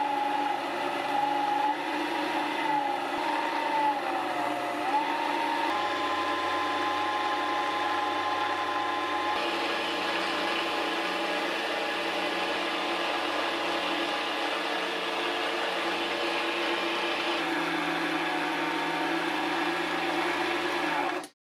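Small lathe motor running with a steady whine while a hand-held tool scrapes a spinning Delrin hammer head. The motor's pitch dips and recovers a few times in the first seconds. A hiss of cutting grows louder from about ten seconds in and lasts several seconds.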